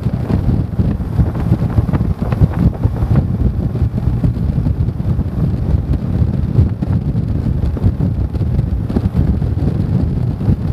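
Wind buffeting the microphone of an action camera on a moving motorcycle: a loud, steady low rumble with a constant flutter.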